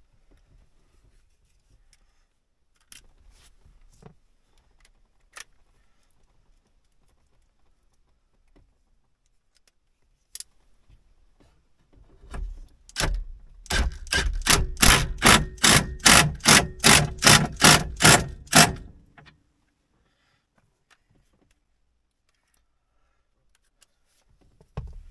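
Cordless power driver driving a screw to mount the welder control panel in the dash, running for about six seconds in a fast, even pulsing of about four beats a second. Light clicks and knocks of handling parts come before it, and a single knock near the end.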